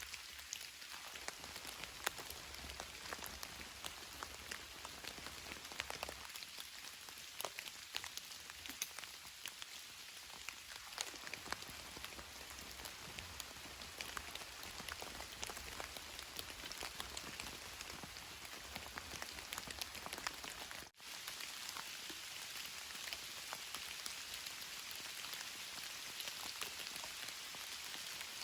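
Steady rain falling on a tarp shelter, with many individual drops ticking sharply. The sound drops out for an instant about three-quarters of the way through.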